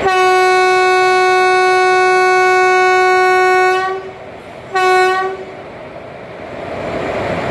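Indian Railways electric locomotive's horn: one long steady blast of about four seconds, then a short blast about a second later. A low rumble grows louder near the end.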